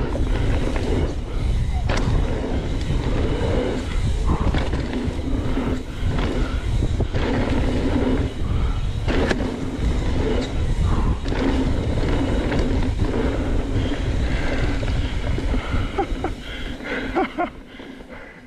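Mountain bike riding fast down a dirt singletrack: tyres rolling and crunching over dirt and roots, with scattered knocks and rattles from the bike and a deep rumble of wind on the camera microphone. The sound fades out near the end.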